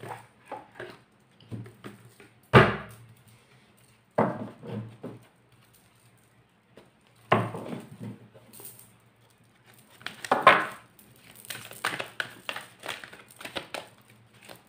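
Hands handling a deck of tarot or oracle cards on a table: a few separate knocks and slaps as cards are shuffled and set down, then a quick run of small card flicks near the end.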